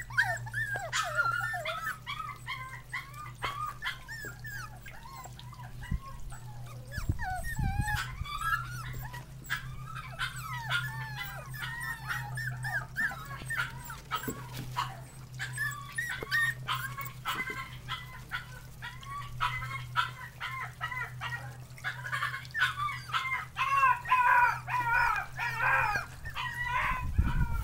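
Litter of seven-week-old Jack Russell Terrier puppies whimpering and yipping almost without pause, many short high cries overlapping, busiest near the end. A steady low hum runs underneath.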